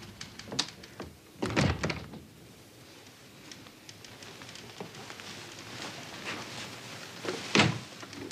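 A door closing with a thump about one and a half seconds in, then quiet room sound. Near the end comes a sharp clack as a telephone receiver is lifted.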